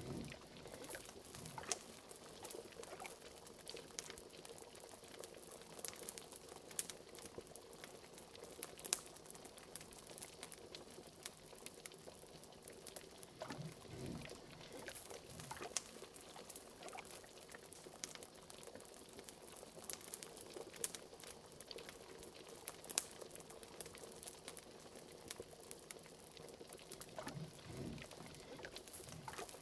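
Liquid bubbling and simmering in a pot, cauldron-style, with a few deeper bubble pops about halfway through and again near the end. Sharp crackles of a wood fire run throughout.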